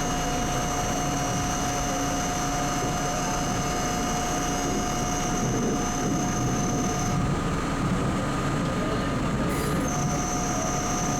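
Subway train running through the tunnel: a steady rumble with several high ringing tones held over it. The tones drop out about seven seconds in and come back near the end, just after a brief sharp noise.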